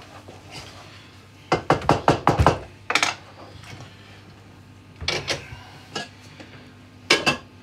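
Pots and pans clattering on a gas hob: a quick run of metal knocks about a second and a half in, then a few more knocks spread through the rest, as a saucepan of rice is set on the hob grate beside a lidded pan.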